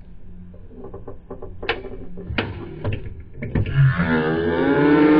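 Plastic clicking of a Pie Face game's handle being turned, with several sharp snaps as its spring-loaded hand flips up. From about four seconds in, loud laughing and shrieking voices.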